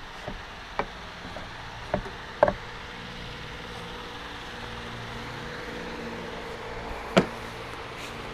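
A wooden block knocking against the edge of a spray-painted board. There are four sharp knocks in the first two and a half seconds and a louder one about seven seconds in, over a steady low hum.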